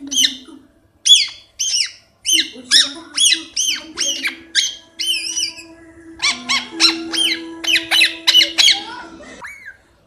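Rose-ringed parakeet giving a long run of shrill, sharp calls, each falling steeply in pitch. They come about two a second at first, quicken to about four a second in the second half, and stop about a second before the end.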